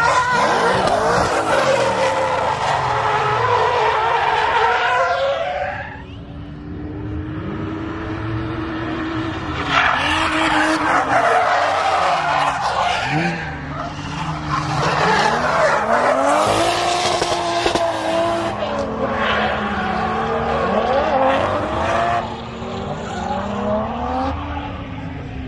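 Cars drifting: engines revving up and down hard while the tyres screech in long slides, in several bursts with a lull from about six to ten seconds in.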